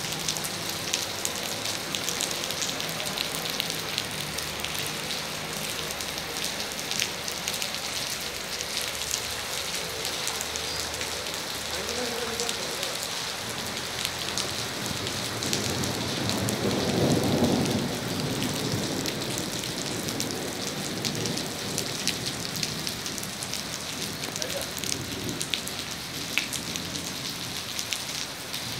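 Steady rain falling, with many small drop ticks throughout; a low rumble swells and fades a little past halfway through.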